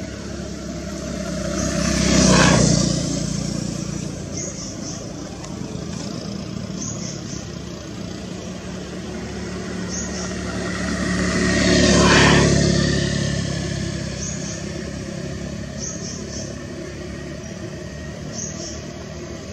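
Two motor vehicles passing one after the other, each swelling to a peak and fading over a few seconds: one about two seconds in, the other about twelve seconds in. Short high chirps recur faintly every few seconds in the background.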